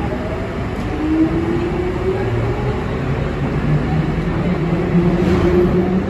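London Underground 1996 Stock train running, with a steady rumble of wheels on rail and a traction-motor whine that rises slowly in pitch from about two seconds in as the train picks up speed.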